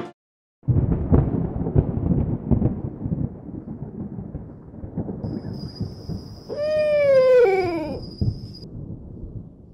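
Rolling thunder rumbling and crackling. About two-thirds of the way in, a cat gives a drawn-out meow that rises a little and then falls, overlapped by a second, lower meow, over a thin high steady tone.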